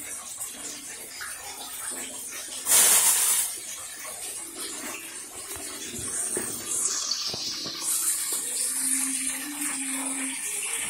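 Fish frying in hot oil, a continuous sizzle, with a louder rush of sizzling about three seconds in.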